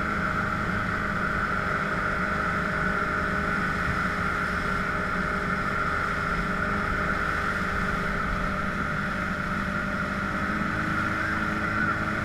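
A Yamaha 130 hp V4 two-stroke outboard running steadily at speed while towing, with water rushing past the hull.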